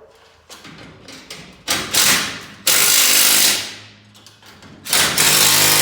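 Cordless impact driver running in three short bursts, about a second each, driving fasteners tight.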